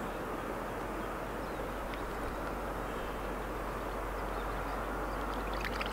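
Steady rushing wind on the microphone, with a few faint ticks.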